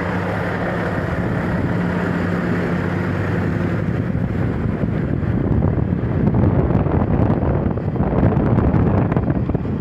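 Car engine running, heard from inside the cabin, steady at first and then louder from about four seconds in as the car drives off, with wind and handling rumble on the phone's microphone.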